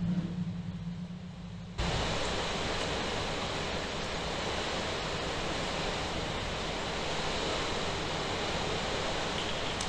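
Steady hiss of heavy rain, cutting in abruptly about two seconds in.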